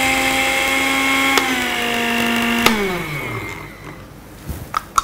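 Electric blender's grinder jar running as it grinds fried brown onions to a coarse powder: a steady motor whine, with a click about a second and a half in. It is switched off with a click a little under three seconds in, and the motor winds down with falling pitch. A few light knocks follow near the end as the jar is lifted off the base.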